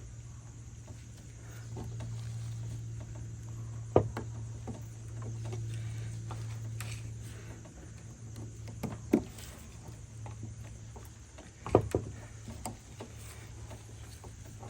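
Hand tools clicking and knocking on metal as a cotter pin is worked loose from a front spindle's castle nut: a few sharp strikes about four, nine and twelve seconds in, with lighter ticks between them, over a steady low hum.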